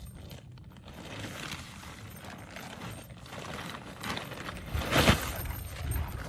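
Heavy rain pattering and wind buffeting a tent, thickening after about four seconds. A loud, sharp clatter or flap comes about five seconds in.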